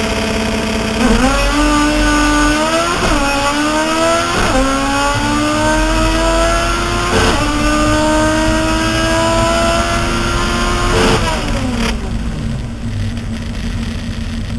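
Honda Insight drag car's engine on a full-throttle pass, heard from inside the cockpit. It holds steady revs, then launches about a second in and climbs in pitch through each gear, with three upshifts marked by a drop in pitch and a clunk. It lets off about eleven seconds in and falls back to a low, steady running note under hiss as the car coasts.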